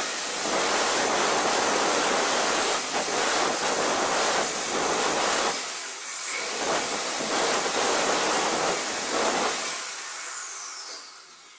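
Large angle grinder with a diamond disc grinding the granite countertop along the edge of the sink cutout: a loud, steady grinding hiss with brief dips as the disc is eased off the stone. Near the end it is switched off and winds down with a falling whine.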